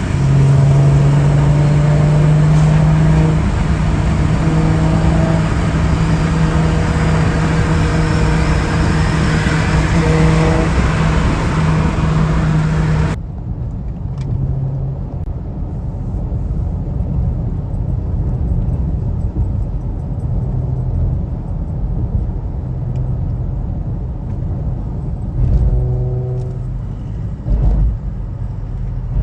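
Car driving at a steady speed: a steady engine drone over road and wind noise. About halfway through it cuts off suddenly to a quieter, duller driving sound, with brief louder swells near the end.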